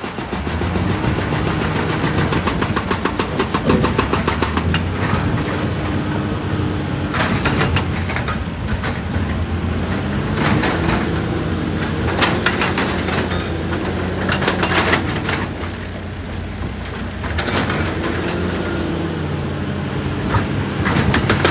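Excavator's diesel engine running under hydraulic load, its pitch rising and falling, with repeated bursts of rapid rock-on-steel clatter and crunching.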